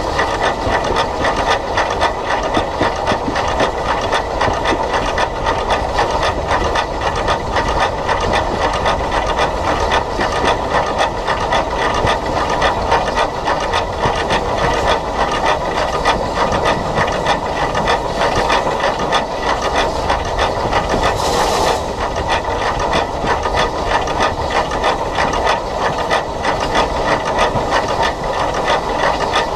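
SECR H Class 0-4-4T steam locomotive No. 263 running, heard close up from the locomotive itself: a steady hiss of steam over the clatter and rattle of the engine and wheels on the track. A brief, sharper hiss comes about three-quarters of the way through.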